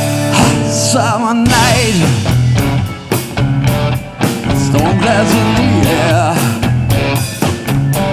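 Live rock band playing: a held chord breaks into the full band about a second in, with a steady drum beat, electric guitar, bass and keyboards under a male lead vocal.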